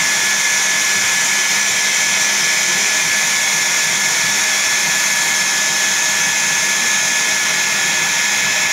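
Water filter plant running: a steady, loud rush of noise with a constant high-pitched whine through it, unchanging throughout.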